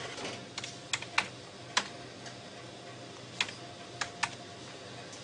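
Keys or buttons on a machine's keypad being pressed one at a time: about ten sharp clicks at irregular spacing.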